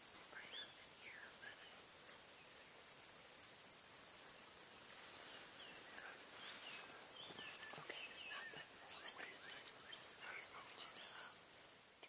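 Faint outdoor ambience: a steady high-pitched insect drone that stops shortly before the end, with many short bird chirps scattered throughout.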